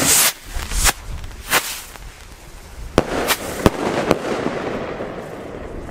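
Small salute rockets (ABA Blitz & Donner): a brief hissing launch, then about six sharp bangs scattered over the next three seconds.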